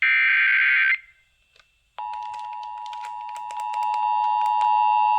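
The last burst of an Emergency Alert System header, a harsh warbling data screech about a second long, then a second of silence, then the two-tone EAS attention signal starting about two seconds in, a steady dual tone with crackling clicks over it that gets louder a little before four seconds. It is the start of a relayed severe thunderstorm warning.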